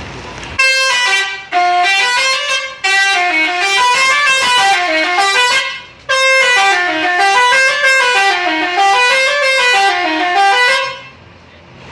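Multi-tone telolet horn on an intercity bus playing a quick melody of stepped notes that run down and back up over and over. It plays in two phrases of about five seconds each, with a short break in the middle, and stops near the end.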